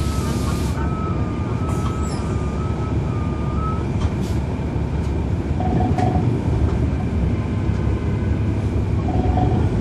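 Cummins ISL9 diesel engine of a NABI 40-SFW transit bus, heard from on board, running with a steady low rumble. For about the first four seconds a high electronic tone alternates between two close pitches, and two short, lower beeps come later.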